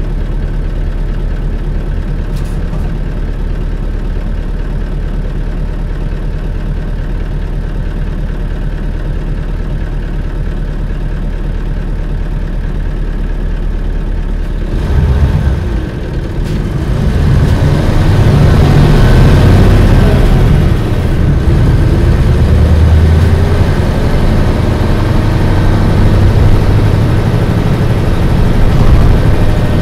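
1997 Isuzu Cubic city bus diesel engine, heard from inside the cabin, idling steadily. About halfway there is a brief burst of noise, then the engine picks up and runs louder as the bus pulls away and gathers speed.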